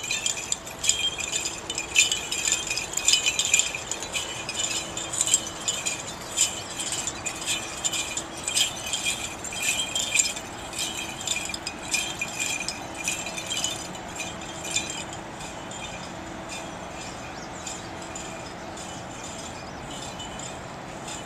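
Small bells of an Orthodox censer jingling irregularly as it is swung on its chains, busiest in the first half and thinning to occasional faint jingles, over a low steady hum.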